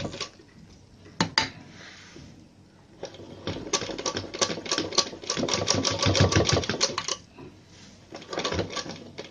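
Domestic sewing machine stitching a blouse neckline in short runs, a rapid even clatter of needle strokes. It stops just after the start, gives a single click about a second in, runs again for about four seconds from three seconds in, then starts once more near the end.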